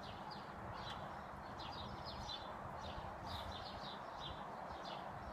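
Wild birds singing: many short, high chirps, faint over a steady background hiss.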